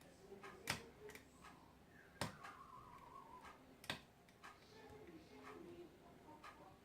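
Faint clicking and light scraping of a lock pick and tension wrench working the pins inside a lock, with three sharper clicks about a second and a half apart and a faint squeak falling in pitch after the second.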